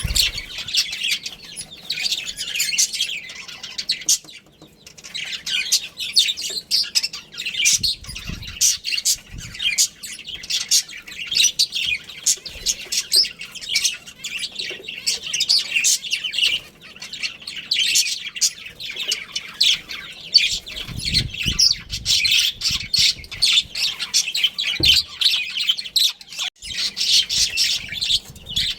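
Many small cage birds chirping and chattering at once in a continuous, overlapping stream of short high calls, with a few low thumps.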